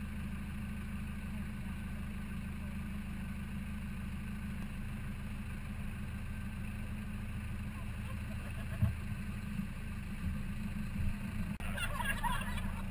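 4x4 vehicle driving off road: a steady low rumble of engine and running gear. A small knock comes about nine seconds in, and a short burst of laughter near the end.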